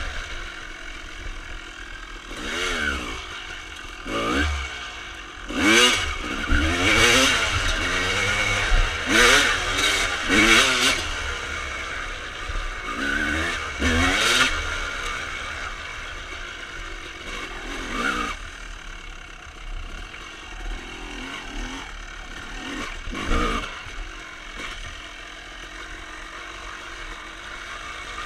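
Honda CR250R two-stroke single-cylinder dirt bike with an aftermarket Pro Circuit exhaust being ridden. The engine revs up and falls back again and again as the throttle is worked through the gears, busy in the first half, with a few shorter bursts and calmer stretches later.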